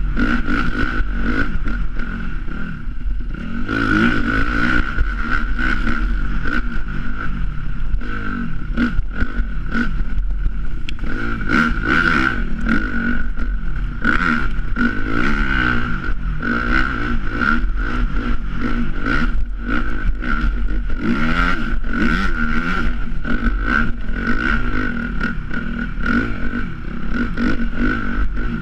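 Dirt bike engine running under load, revving up and down repeatedly with the throttle, with a steady high whine alongside.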